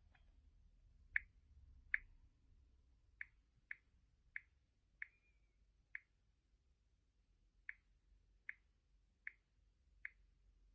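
A series of short, sharp clicks, about a dozen at uneven intervals of roughly half a second to a second, over near silence.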